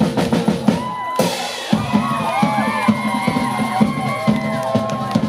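Live rock drum kit being played in a band's set: a steady run of bass drum and snare hits with cymbals. High wavering tones layer over the beat from about a second in.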